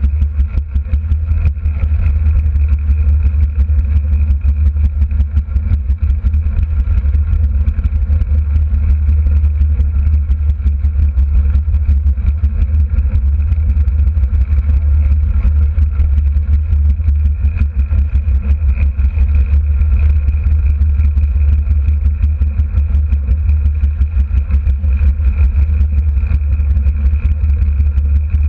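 Derny's small motorcycle engine running steadily at pacing speed around the velodrome, with a heavy low rumble and an even hum that does not change.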